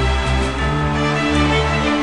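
Background music of sustained instrumental chords, the bass line shifting about half a second in.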